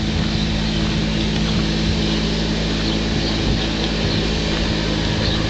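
A vehicle engine running at a steady speed, a constant low hum with road and wind noise.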